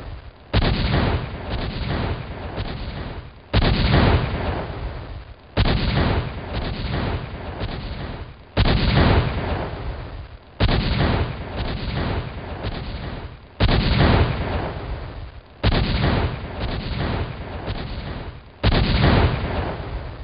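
Fireworks going off: a loud bang about every two to three seconds, each followed by a quick run of crackling reports that fade away before the next.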